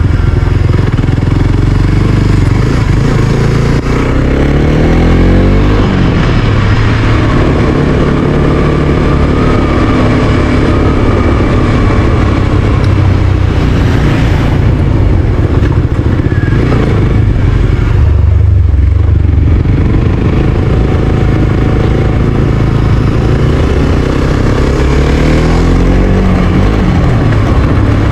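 Suzuki GSX-S125's single-cylinder four-stroke engine running as the motorcycle rides at town speed, heard from the bike over a steady rumble. The engine note slides in pitch twice, a few seconds in and again near the end, as speed and gears change.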